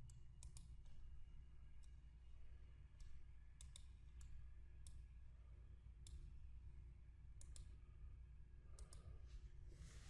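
Faint computer mouse clicks, about a dozen scattered single and double clicks, over a low steady hum of room tone.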